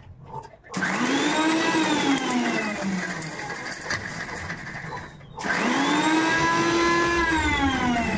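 Electric mixer grinder grinding roasted whole dry spices (dried red chillies, coriander seeds, cumin, black cardamom, black pepper) in two runs. Each run starts with the motor's whine rising quickly, then slowly sinking in pitch. The first stops about five seconds in, and the second starts about half a second later.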